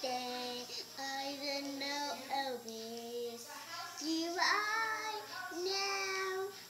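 A young girl singing, with several long held notes in short phrases.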